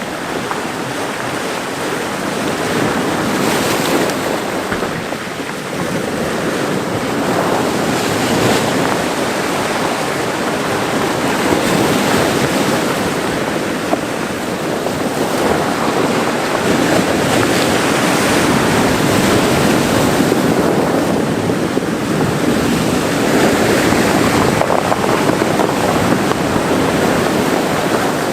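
Mediterranean Sea waves breaking and washing ashore, a continuous surf that swells and eases every few seconds.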